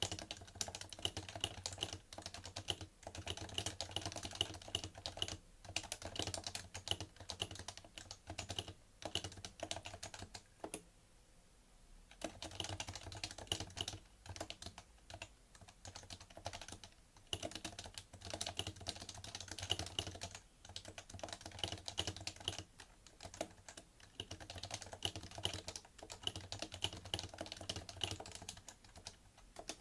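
Fast typing on a PFU Happy Hacking Keyboard Professional2 with Topre electrostatic capacitive switches: a dense, continuous run of keystroke clacks. There is a short pause about a third of the way through.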